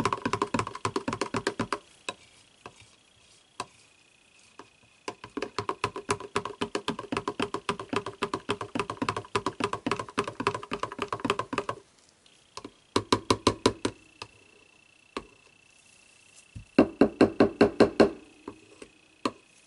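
Metal spoon stirring soap batter in a plastic measuring jug, clacking rapidly against the jug's sides in several runs of quick strokes with short pauses between.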